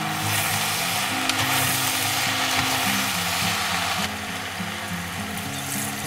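Diced vegetables frying and sizzling in a pot as they are stirred with a spoon; the sizzle is loudest for the first four seconds, then drops off.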